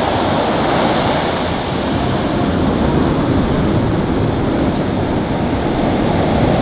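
Ocean surf: waves breaking offshore and foamy wash rushing up the sand, a loud, steady rush of noise.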